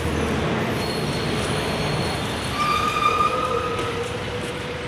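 Steady road-traffic noise from vehicles passing below, with thin high whining tones at several pitches about halfway through and a steady lower drone toward the end.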